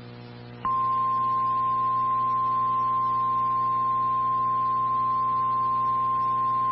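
Steady single-pitch emergency alert tone, the 1050 Hz warning alarm tone that heads a National Weather Service warning, starting sharply under a second in and held unbroken; it signals that a severe thunderstorm warning message is about to follow. A faint low hum comes before it.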